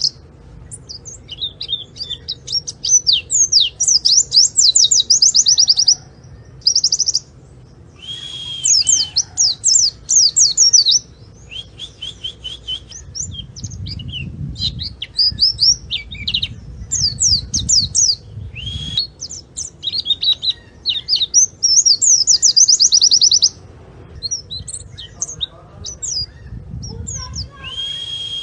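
White-eye (pleci) singing a loud, fast, high twittering song: bursts of rapid chirps and trills lasting a second or more, broken by short pauses, with some repeated steadier notes.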